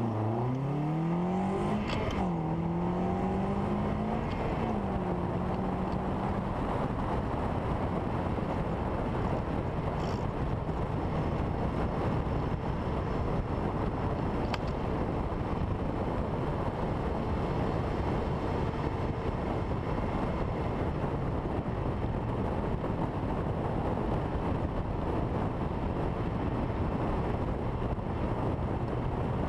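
Ariel Atom's engine pulling hard with rising revs, dropping twice for upshifts in the first few seconds, then cruising at freeway speed where steady wind and road noise in the open cockpit cover a low engine drone.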